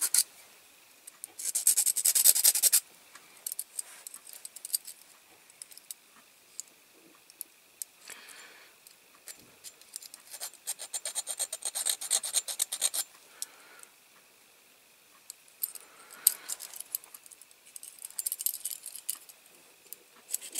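Small hand file rasping across the peened end of a diecast toy's metal axle, filing off the axle head so the wheel can come off. Bursts of quick, short strokes, with pauses between, the longest near the middle.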